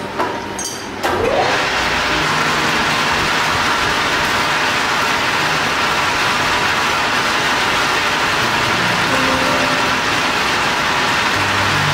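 Metal lathe starting up about a second in and then running steadily.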